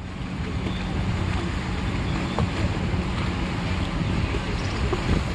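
Motorboat and water-taxi engines running steadily on a canal, mixed with wind noise on the microphone.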